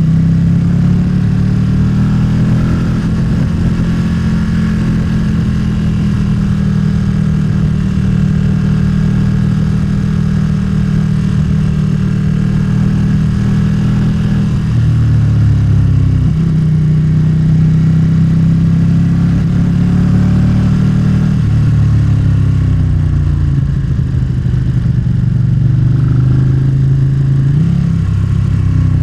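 Motorcycle engine running while riding, heard from a helmet-mounted mic; the engine pitch shifts down and back up a few times as the revs change, about halfway through and again near the end.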